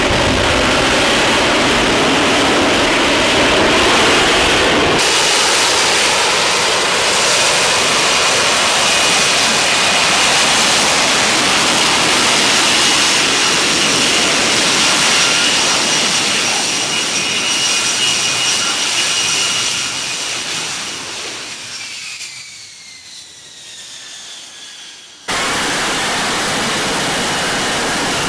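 F-35B stealth fighter's jet engine and lift fan running loud while hovering: a dense rush of exhaust noise with a steady high whine on top. About twenty seconds in the sound fades and the whine falls in pitch, then loud jet noise cuts back in suddenly near the end.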